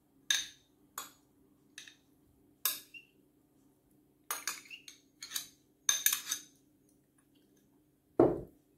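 A metal spoon clinking and scraping against a small glass bowl as raisins are scooped out and tipped into a glass bowl of fruit salad: a series of sharp, irregular clinks, bunched together about halfway through. Near the end comes a single louder, dull thump.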